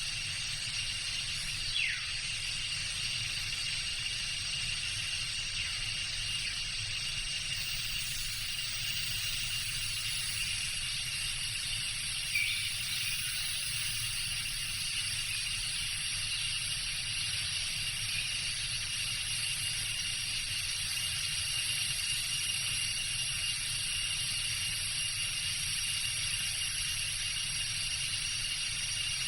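Tropical jungle ambience: a steady chorus of insects holding several high tones over a low rumble, with a brief falling bird call about two seconds in and another short call near twelve seconds.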